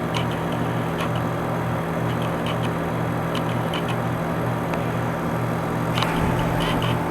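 Carrier Comfort Series 5-ton heat pump outdoor unit running steadily, its compressor hum pulsing slowly and evenly, with light ticks here and there. Its outdoor coil is iced up and it has not yet switched into defrost.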